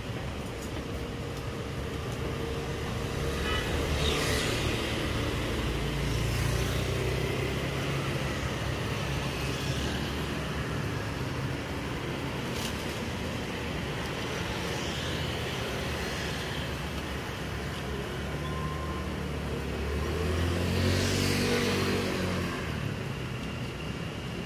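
Street traffic going by, with louder vehicles passing about four seconds in and again about twenty-one seconds in.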